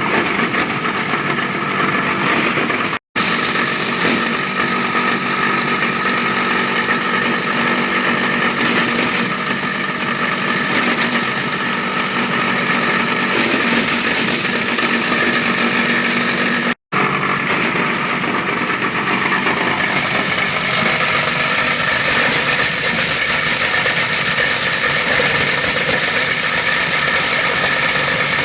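Mini plastic shredder running steadily, its motor and cutters keeping up a loud, even machine drone with several steady tones. The sound breaks off for an instant twice, about three seconds in and again near the middle.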